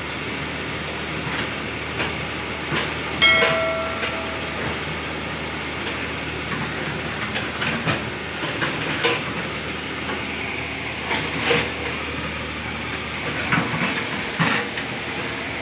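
Excavator working, a steady rumble with irregular metal clanks and knocks. About three seconds in comes one loud, ringing metallic clang, the loudest sound in the stretch.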